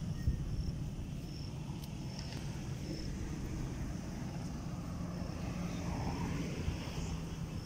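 A steady low engine drone over a rumble, with short high chirps repeating about once a second.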